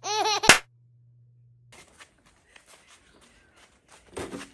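Edited-in comic sound effect: a wavering, warbling pitched tone that ends abruptly in a sharp click about half a second in. Then faint background with a short, louder rustle near the end.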